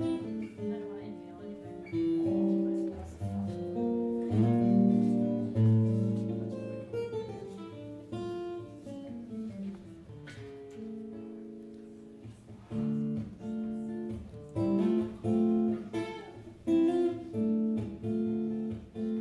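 Acoustic guitar playing the instrumental introduction to a folk song, with regular strummed chords about once a second in the second half.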